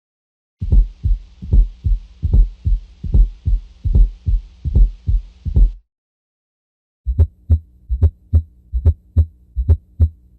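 Recorded heart sounds heard through a stethoscope: deep paired lub-dub beats, roughly 75 a minute, with a hiss behind them. They stop at about six seconds, and a second recording follows with quicker, evenly spaced beats over a steady hum.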